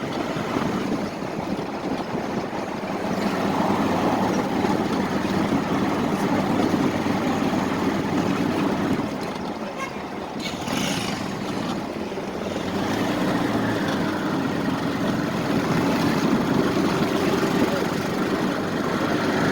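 Motor vehicle engine running steadily, with a continuous rumble of engine and road noise.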